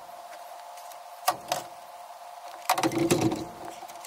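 Metal knocks and clanks from handling a small engine on steel mounting plates: two sharp clicks a little over a second in, then a louder cluster of knocks near the middle, over a steady faint hum.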